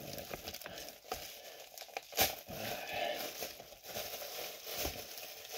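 Thin plastic bag packaging being crinkled and pulled open by hand: an irregular crinkling with small crackles, the sharpest about two seconds in.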